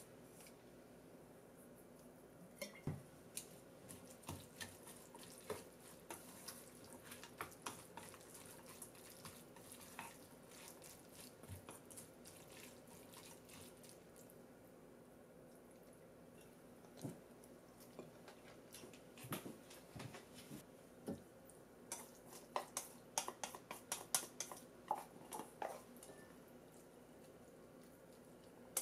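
Chopsticks clicking and scraping against a stainless steel mixing bowl as a wet mackerel-and-onion salad is tossed, with soft wet mixing sounds. The taps are faint and irregular, growing quicker and louder over the last several seconds as the salad is scraped out of the bowl onto a plate.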